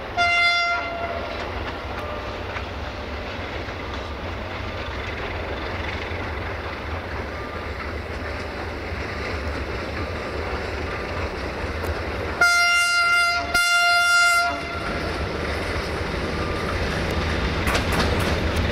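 Romanian Class 060-DA (LDE2100) diesel-electric locomotive sounding its horn: one short blast at the start, then two longer blasts a little after two-thirds of the way through. Its Sulzer diesel engine runs steadily underneath as it approaches with a freight train, with wheel clicks on the rails near the end.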